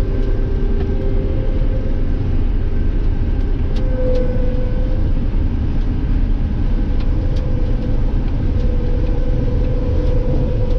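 Combine harvester running steadily while cutting soybeans: a continuous low engine and machinery rumble with faint steady hums.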